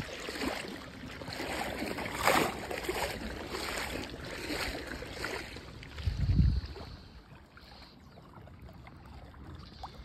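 Water sloshing and swishing at the edge of flooded water, in several surges over the first half. Wind rumbles on the microphone about six seconds in, then a quieter steady wind hiss follows.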